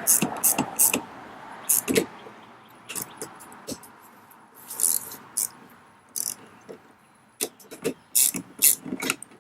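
Ratchet wrench with a 7/16-inch socket clicking in short back-and-forth strokes as mounting bolts are tightened. There is a quick run of strokes at the start, a few scattered ones in the middle, and another run near the end.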